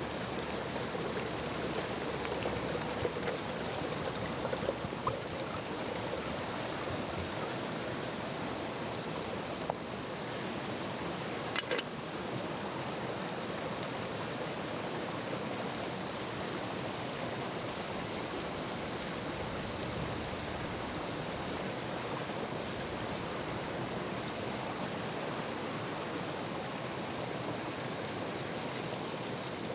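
Mountain stream rushing steadily over rocks, with two sharp clicks close together about twelve seconds in.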